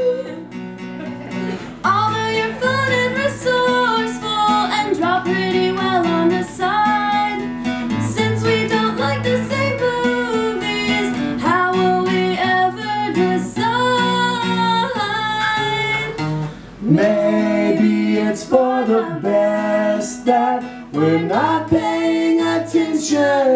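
Live acoustic guitar strummed under singing by a man's and a woman's voice together.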